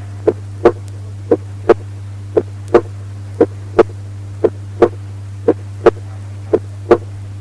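Normal heart sounds at the aortic area: about one lub-dub pair a second, the second heart sound (S2) louder than the first (S1). A steady low hum runs underneath.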